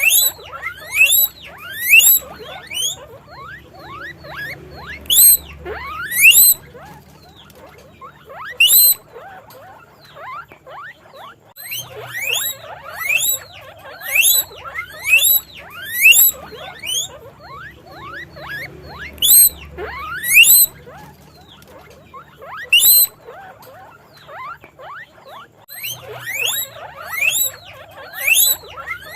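Guinea pig wheeking: loud, short squeals that each rise sharply in pitch, repeated in quick runs of several calls with brief pauses between runs.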